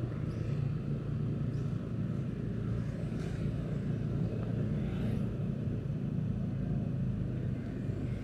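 Motorbike engine running steadily at an even riding speed, a low hum with road and wind rumble under it and faint passing traffic.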